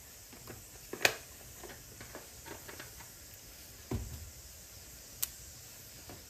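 Cumin seeds crackling in hot oil in a nonstick pan: scattered small pops over a faint sizzle, the sharpest pop about a second in.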